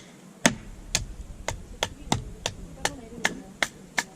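A quick, regular run of sharp knocks on wood, about three a second, the first with a heavier thud: firewood being struck and split into kindling.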